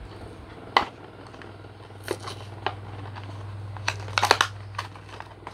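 Plastic blister and cardboard backing of a Hot Wheels die-cast car package being pulled open: irregular crackles and snaps, with a quick cluster about four seconds in.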